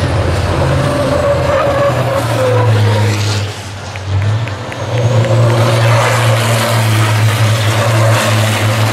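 Turbodiesel engines of a pack of race trucks running hard past the track, a heavy steady drone, dipping briefly in loudness about halfway through.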